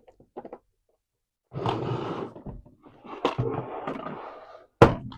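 Plastic toy stand being slid and scraped underneath a plastic toy castle, in two rough scraping stretches, then a sharp plastic click near the end.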